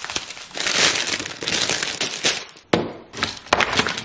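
A kitchen knife crunching and crackling through a hard-coated caramel apple on a paper plate, in a run of short, irregular crunches.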